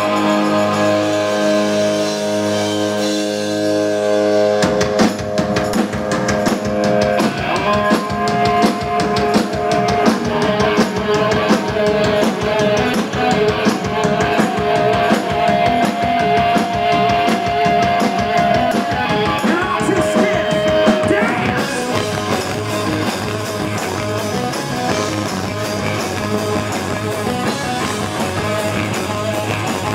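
Rock band playing live: sustained guitar chords ring out, then the drum kit and the full band come in about four and a half seconds in, with long held notes carried over the driving beat.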